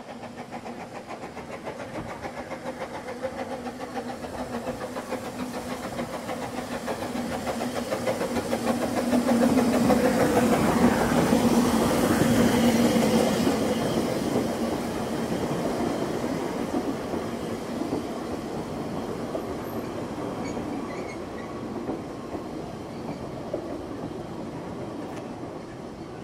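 Narrow-gauge steam train running into a station close by, with the clatter of wheels on rail. It grows loudest about halfway through as the locomotive passes, with a steady low hum under it, then eases off as the coaches roll slowly past.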